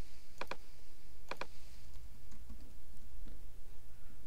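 Computer mouse button clicks, two quick pairs of sharp clicks in the first second and a half, then a few faint keyboard taps, over a low steady hum.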